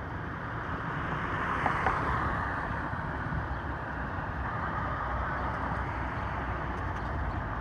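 Wind buffeting the microphone over a low, steady rumble of street traffic.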